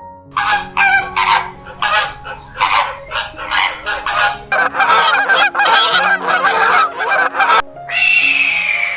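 Geese honking, many harsh calls in quick succession. Near the end a single longer, drawn-out call begins.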